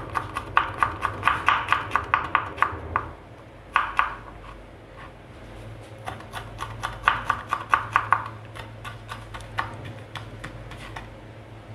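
Small kitchen knife chopping garlic on a wooden cutting board while mincing it fine: rapid taps of about five a second in bursts of a few seconds, with pauses and a few scattered taps between.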